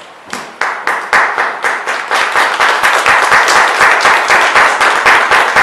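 Applause: hand clapping breaks out a moment in and quickly builds into steady clapping from a small crowd, with one pair of hands loud and close by.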